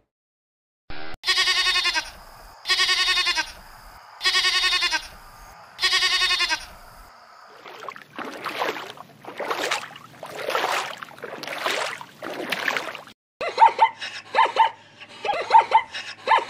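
A run of animal calls: four drawn-out bleats about a second and a half apart, then five breathy, rasping calls, then from about two-thirds of the way in a quick series of sharp yelping barks from plains zebras.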